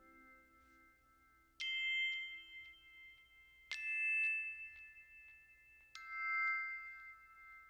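Background music: three bell-like chime chords struck about two seconds apart, each ringing on and slowly fading.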